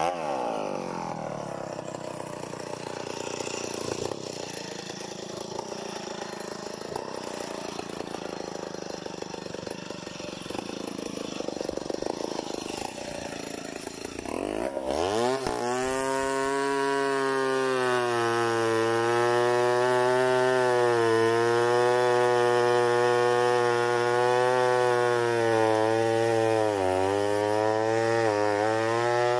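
Large two-stroke chainsaw. For about the first half it runs quieter and off the cut. From about halfway it runs at full throttle, cutting into a big hardwood log, its pitch steady with brief dips near the end as it loads in the cut.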